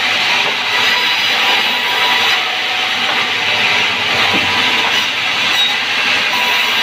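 Sawmill band saw running and cutting timber: a loud, steady, hissing rasp with no breaks.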